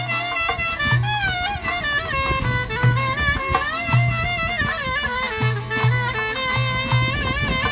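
A clarinet playing an ornamented Turkish folk melody full of slides and vibrato, over deep hand-drum strokes keeping a repeating rhythm.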